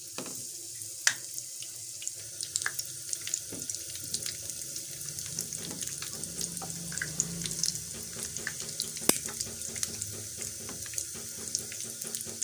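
Breadcrumb-coated bread balls deep-frying in hot oil: a steady high sizzle full of small crackles, with a couple of sharper pops.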